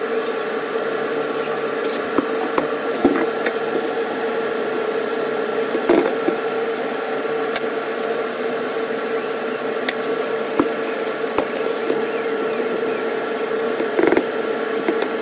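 Steady hum of a running machine or appliance: one constant tone over an even hiss, with a few light clicks and knocks, the most marked about six seconds in and near the end.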